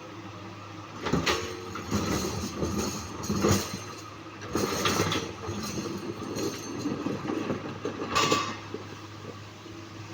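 Komatsu PC200-8 hydraulic excavator's diesel engine running steadily under a low hum, with several bouts of heavy clanking and scraping as it works boulders.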